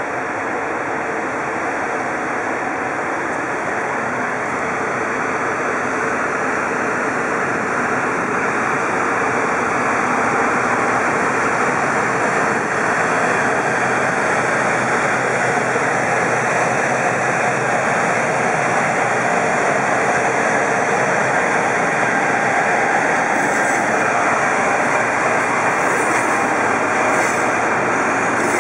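JR Freight EF200 electric locomotive pulling a container train away from a stop, its Hitachi GTO-VVVF inverter and traction motors running steadily and growing somewhat louder as it passes. A few faint clicks near the end from wagon wheels over rail joints.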